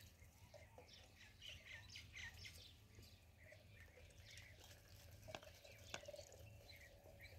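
A flock of ducklings peeping faintly, many short high chirps overlapping. Two sharp clicks come near the end.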